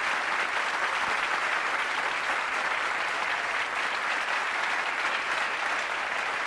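Crowd applauding steadily, as at the end of a song on a live concert recording.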